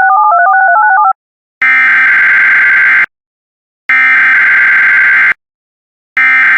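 A short electronic tone sequence stepping up and down between two pitches, then the Emergency Alert System SAME header: three identical loud, buzzing data bursts, each about a second and a half long, with about a second of silence between them. The header is the coded signal that opens an EAS message, here a required weekly test.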